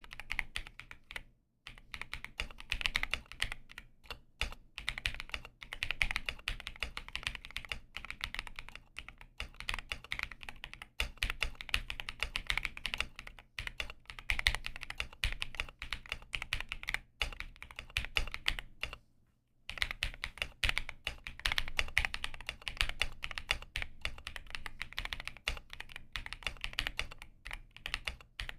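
Computer keyboard being typed on quickly, a steady stream of key clicks with two short pauses, about a second and a half in and again near twenty seconds.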